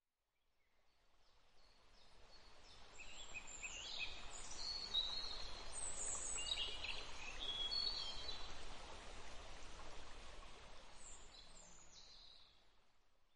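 Nature ambience: many small birds chirping over a soft steady background rush, fading in over the first few seconds and fading out near the end.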